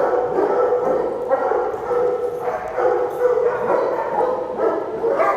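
Several dogs barking and yipping in overlapping bursts, over a steady hum.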